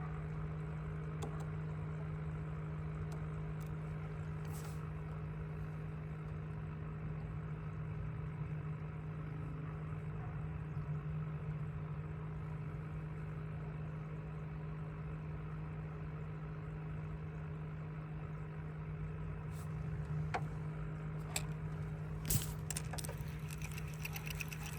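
A boat's motor hums steadily at an even pitch. A few sharp clicks and knocks come near the end.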